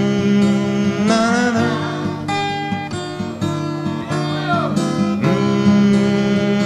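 Slow acoustic guitar song playing, a steady strummed accompaniment under a melody line that bends in pitch about a second in and again around four to five seconds in.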